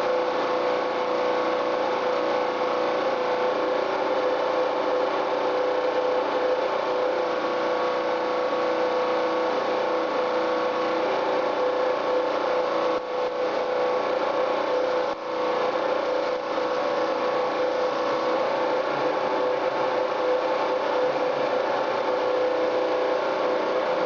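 Electrostatic paint spray gun spraying: a steady hiss with a machine hum, broken by two brief dips about halfway through.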